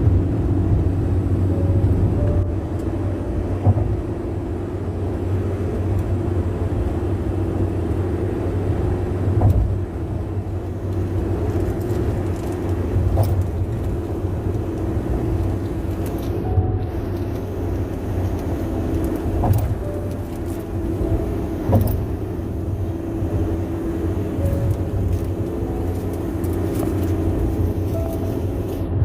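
Car tyre and road noise at highway speed: a steady low drone, loud tire noise in the owner's words.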